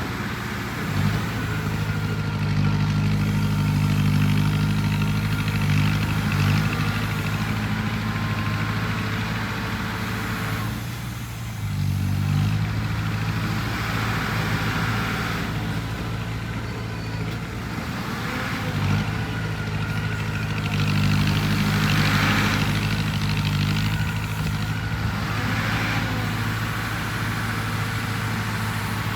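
A heavy construction machine's engine running steadily, with its load and pitch easing and rising a few times, dipping briefly about eleven seconds in.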